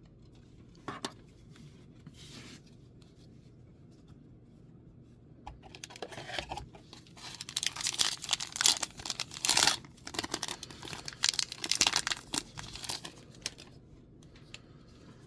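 A booster pack's foil wrapper being torn open and crinkled: a run of tearing and crackling rustles that starts about five seconds in, is loudest in the middle and dies away near the end.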